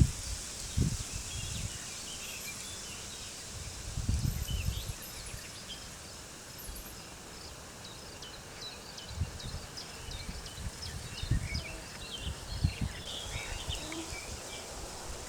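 Wind blowing in gusts, with low rumbles that swell near the start, around four seconds in, and again through the second half, while birds chirp and twitter in short high calls throughout.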